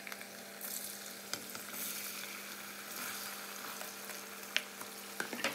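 Diced potato cubes deep-frying in hot oil in a stainless steel pan: a steady sizzle. A few sharp clicks come through it, several of them near the end.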